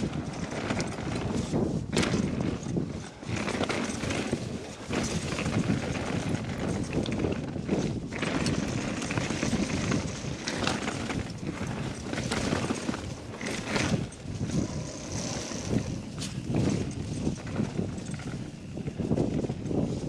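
Mountain bike rolling down a rough, stony dirt track: tyre noise over gravel and rocks with frequent knocks and rattles from the bike.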